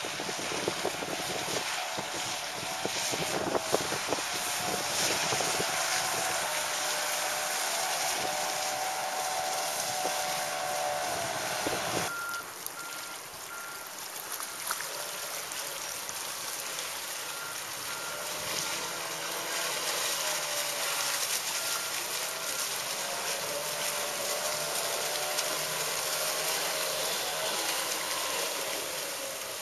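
25 HP two-stroke Mercury outboard running at speed on an inflatable tunnel-hull speedboat, its engine note wavering up and down over a steady hiss. The sound changes abruptly about 12 seconds in.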